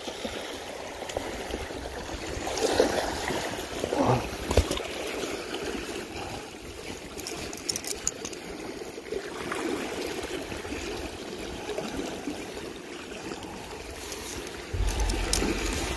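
Steady rush of flowing water at the shore, with a few brief handling sounds a few seconds in and a low rumble near the end.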